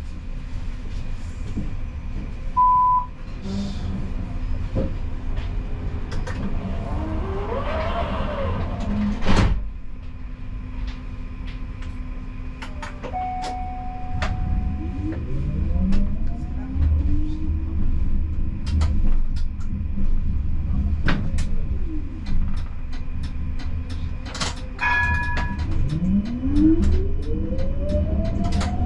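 Siemens Combino tram running on the rails: the electric drive's whine sweeps up in pitch as it gathers speed, several times, over a low rolling rumble. There are a few short electronic beeps, one near the start and a chord of tones about 25 seconds in, and a sharp knock about ten seconds in.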